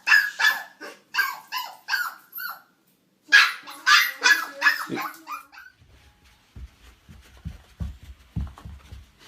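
A small dog barking rapidly in two volleys of quick, high-pitched barks with a short gap between them. After that come only faint, irregular low thumps.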